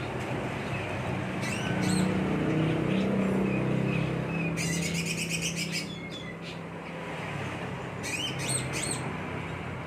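A cucak ijo (green leafbird) singing in three short bouts of fast, high chirping phrases, over a low steady motor hum that swells about two to four seconds in.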